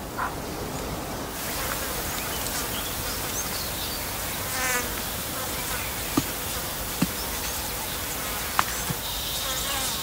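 Insects buzzing steadily, with a short trill about halfway through and a few faint clicks.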